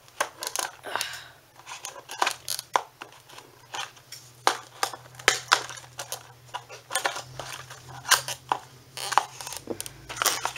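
Plastic and cardboard toy packaging being handled and pulled apart by hand: irregular crinkles, clicks and snaps.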